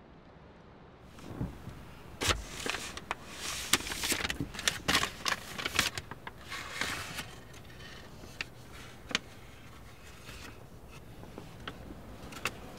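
Paper crinkling and rustling as an envelope is opened and handled, in quick clusters for a few seconds, then a few sparse soft clicks as the banknotes inside are handled, over a low steady hum.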